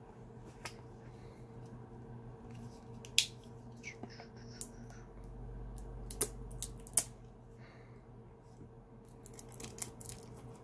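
Plastic wrap being cut and pulled off a product box: scattered small snips, crinkles and sharp clicks, coming in a quicker run near the end.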